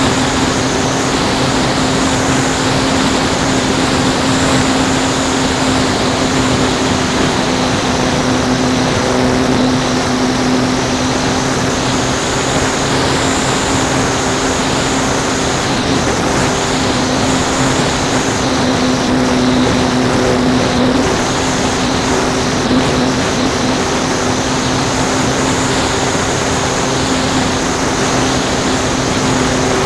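RC model airplane's motor and propeller running steadily in flight, heard from a camera on the plane: a constant drone with a high whine that wavers slightly in pitch.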